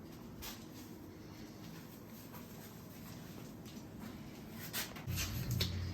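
Faint rustling and handling noise in a small room, with a few light clicks, the most of them about five seconds in. Background music with a low bass comes in near the end.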